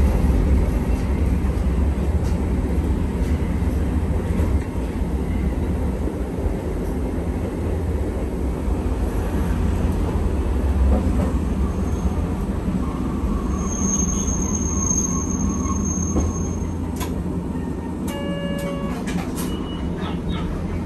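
Hankai Tramway streetcar running along the line, heard from inside the car: a steady low rumble of motors and wheels on the rails. A high thin squeal holds for a few seconds past the middle, and a few short clicks and tones come near the end.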